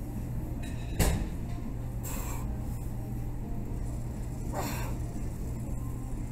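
A loaded barbell clanks sharply once about a second in during deadlift reps, then two forceful breaths follow a couple of seconds apart over a steady low hum.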